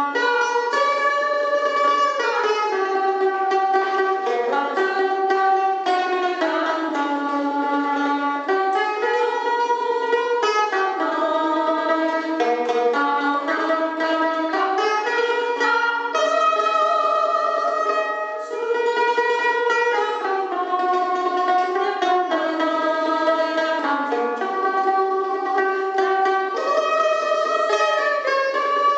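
Mandolin played solo: a melody of held notes kept sounding by rapid tremolo picking.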